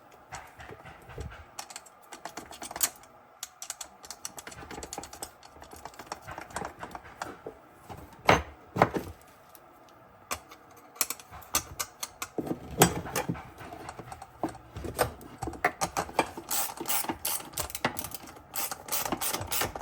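Irregular metal clicks and clinks of a nut being fitted onto a bolt and worked with a wrench at a small wagon wheel's hub, with a few louder knocks about eight to nine seconds in and again near thirteen seconds.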